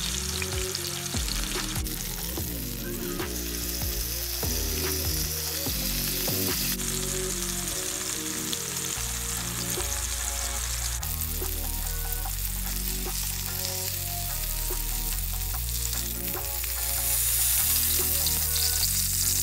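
Chicken breasts sizzling as they sear in hot oil in a frying pan, a steady crackling hiss over background music. The sizzle grows louder near the end.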